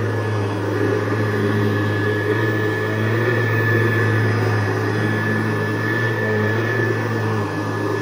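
Hoover Convertible U4317 upright vacuum running on carpet: its motor and beater-bar brush roll give a steady hum with a thin high whine as it is pushed over the rug.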